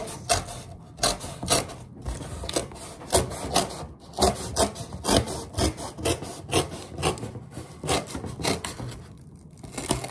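A knife sawing back and forth through corrugated cardboard, with rough rasping strokes about two a second and a short pause near the end.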